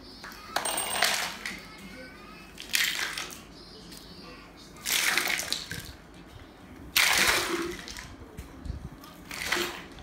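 Broom sweeping scattered plastic toys across a hard terrazzo floor, the small pieces clattering and scraping along. There are five sweeps about two seconds apart.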